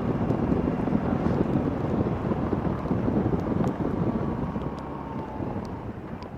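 BMW R18's 1,800 cc boxer-twin engine running, mixed with wind rush on the microphone while riding. The sound eases and gets quieter over the last couple of seconds as the bike slows.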